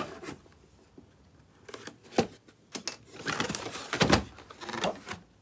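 Cardboard product box being opened by hand: scattered knocks and rustling of the flaps and packed contents, with a louder knock about four seconds in.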